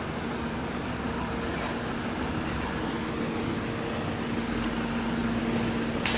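Steady city street noise with a constant low hum, like engines and traffic running on. A brief sharp bump right at the end.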